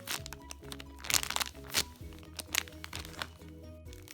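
Background music with a light melody of held notes, over several short rustling handling noises as a squishy foam toy is handled.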